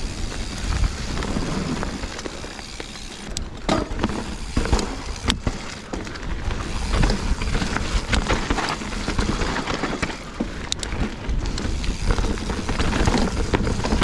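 Mountain bike riding along a dirt trail: a steady rush of tyre noise and wind on the microphone, with the chain and frame rattling and several sharp knocks as the bike goes over bumps, the trail a bit muddy here.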